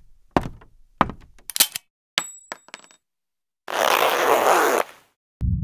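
Logo-animation sound effects: a string of sharp metallic hits and clinks, one ringing briefly, followed by about a second of rushing whoosh noise. Loud music kicks in at the very end.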